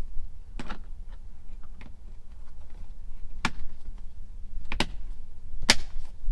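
Plastic Tesla dash trim pieces being snapped into place: a handful of sharp clicks about a second apart, over a low steady hum.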